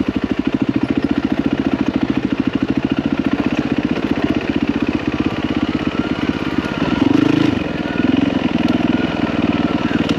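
Yamaha WR450F dirt bike's single-cylinder four-stroke engine running at low revs, its firing pulses evenly spaced. From about seven seconds in it rises in a few short bursts of throttle.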